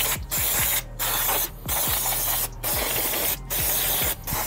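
Aerosol can of degreaser spraying onto a bare engine block, a hiss let off in about six short bursts, roughly one a second.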